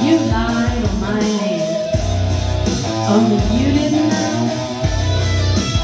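A song playing: a singer's voice over guitar and low bass notes.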